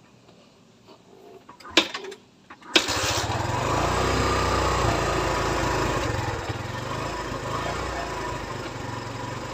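Kawasaki Barako II motorcycle engine, warmed up. After a moment of quiet and a couple of clicks, it starts about three seconds in and then runs steadily.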